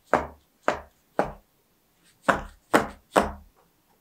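Paper baking cups filled with cocoa muffin batter tapped down on the table to knock out air bubbles. Six short knocks come in two sets of three.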